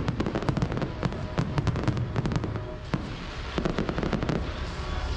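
Fireworks display: rapid crackling and popping of many bursting stars over a continuous low rumble. The crackle is densest for the first couple of seconds, thins out, then picks up again briefly past the middle.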